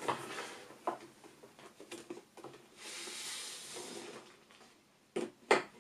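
Picture card being slid out of a wooden kamishibai theatre frame: a soft sliding rustle lasting about a second and a half, with light clicks from handling before it and two sharp knocks near the end.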